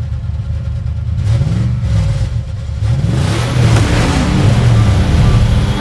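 Bugatti Chiron's quad-turbo W16 engine accelerating hard, its pitch climbing and dropping back several times as it shifts up. The sound is muffled for about the first three seconds, then comes through clearly.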